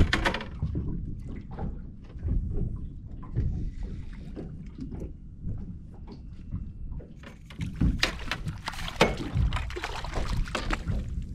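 Small fishing boat on the water: a steady low rumble of water and wind, with irregular knocks and clatters on board, the loudest about eight to nine seconds in.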